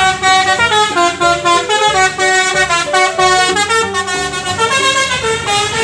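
Coach's musical multi-trumpet air horn ('telolet' horn) playing a quick tune, its notes stepping up and down every fraction of a second with several notes sounding together.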